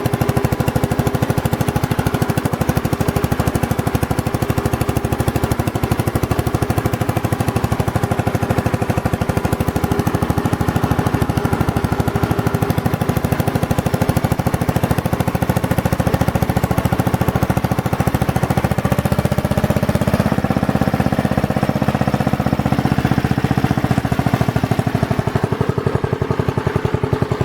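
Briggs & Stratton 23D 9 hp single-cylinder engine of a Magna Trac garden tractor running steadily with rapid, even firing pulses. About twenty seconds in its speed picks up, then eases off near the end.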